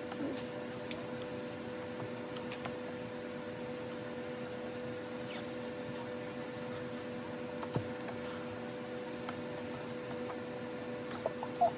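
A steady low hum runs throughout. Over it come a few scattered light clicks and taps as photocards are handled and laid down one at a time on a desk, the loudest about three-quarters of the way in.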